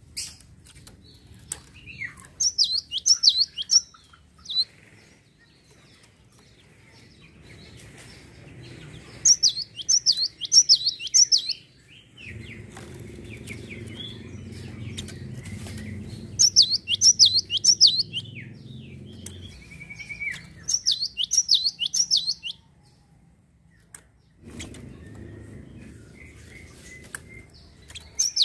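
A gelatik songbird singing in short bursts of quick, high, descending chirps, repeated every few seconds, over a low rumbling background noise.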